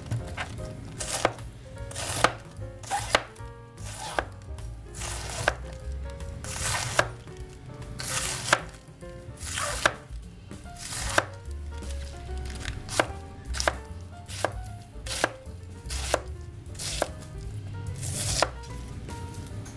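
Large kitchen knife chopping a head of cabbage into coarse strips on a wooden cutting board: each stroke crunches through the leaves and ends in a sharp knock of the blade on the board, about one stroke a second at an uneven pace.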